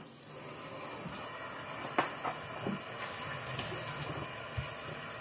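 Kitchen tap running in a steady hiss while the pork pata is rinsed clean, with a few light knocks of handling.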